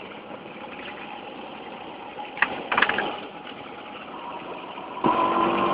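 Classic two-stroke Vespa scooter engines running on the move, with road and wind noise. There are a couple of short, sharp sounds near the middle, and about five seconds in a louder, steady engine note comes in.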